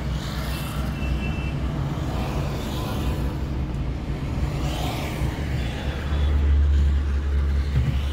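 Car's engine and road noise heard from inside the cabin as it rolls slowly in through a gate: a steady low rumble that swells about six seconds in.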